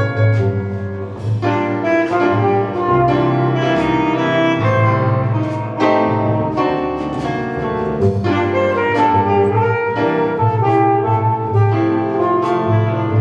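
Live jazz combo playing: a saxophone carries the melody over piano, double bass and a drum kit with regular cymbal strokes.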